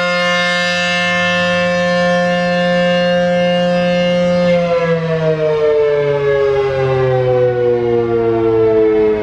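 ACA P-15 outdoor warning siren sounding a loud, steady alert tone. About four and a half seconds in it begins to wind down, its pitch falling slowly, as the alert ends.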